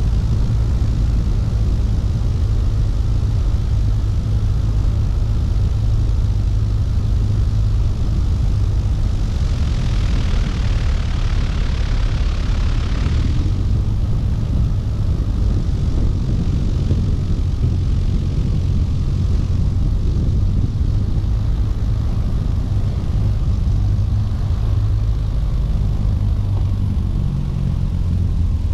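Cessna 170B's engine and propeller droning steadily on a ski landing approach and touchdown on snow, heard from outside the aircraft with heavy wind rush. A louder hiss swells for a few seconds about ten seconds in, and near the end the engine note drops lower toward idle as the plane slides to a stop on its skis.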